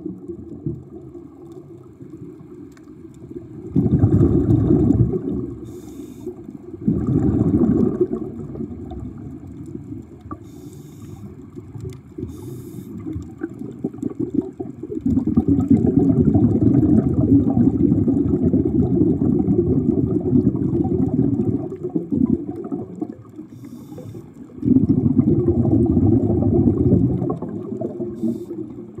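Low, muffled underwater water noise that swells and fades several times, with a few faint crackles.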